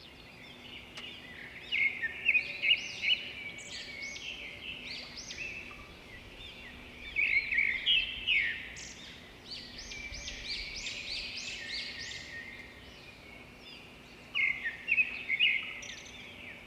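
Small birds chirping and singing in quick runs of high chirps, louder in three spells, over a faint steady low hum.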